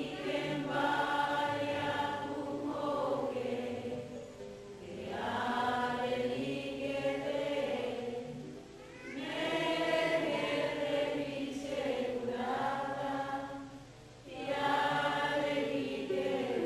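A group of voices singing a devotional hymn in unison, in phrases of four to five seconds with a short pause for breath between each.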